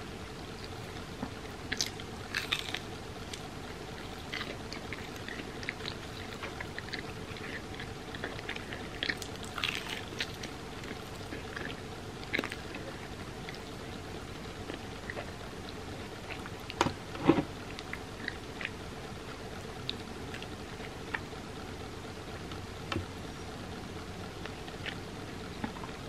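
A person chewing hotteok, a sweet Korean filled pancake, with scattered small wet clicks and smacks of the mouth and one louder mouth sound about two thirds of the way through. A faint steady hum lies underneath.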